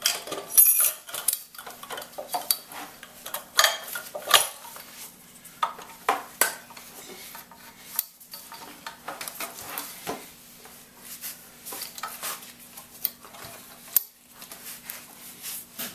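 Steel engine parts clinking and knocking irregularly as they are handled and fitted together during assembly of a Royal Enfield Bullet 350 flywheel and crankcase.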